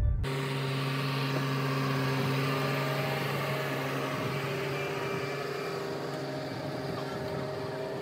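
Case IH Steiger 500 four-wheel-drive tractor's diesel engine running steadily as it drives past towing a field cultivator, slowly fading.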